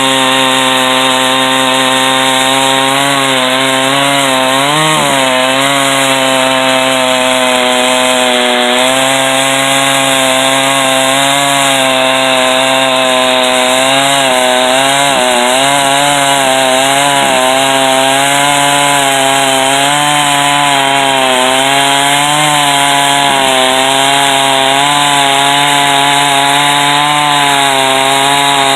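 Chainsaw in a chainsaw mill running steadily at high revs under load, ripping lengthwise through a white oak log; the engine note wavers slightly as the load on the bar changes.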